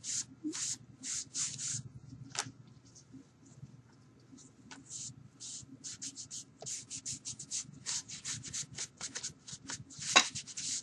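A baby wipe being dabbed and rubbed over watercolor paper in quick, short, irregular scrubbing strokes, thinning out for a couple of seconds a few seconds in and then coming faster. A single sharp tap near the end.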